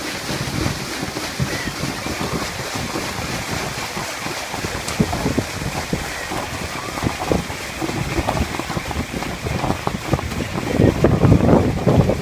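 Steamboat paddlewheel turning and churning the river water with repeated splashing, with wind buffeting the microphone, heavier near the end.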